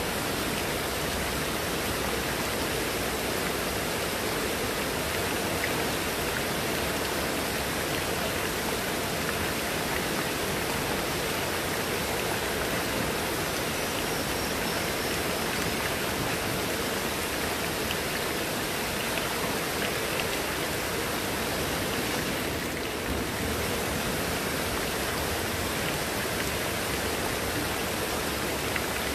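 Heavy rain falling steadily on leaves and wet ground, with runoff pouring off a roof edge.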